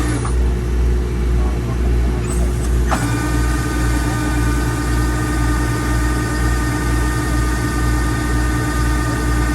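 Kubota rice combine harvester running, its engine giving a steady low throb with a pulsing beat. About three seconds in there is a click, and then steady high whining tones from the machine come in and hold.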